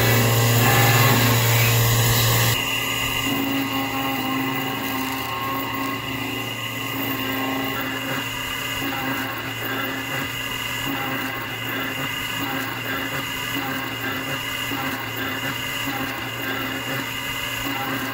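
Horizontal milling machine cutting a brass connecting rod with a long-overhanging end mill: a steady spindle whine with the hiss of cutting and coolant spray. The tool runs steadily despite sticking out far from its holder. About two and a half seconds in, the sound drops abruptly to a slightly quieter, similar steady cut.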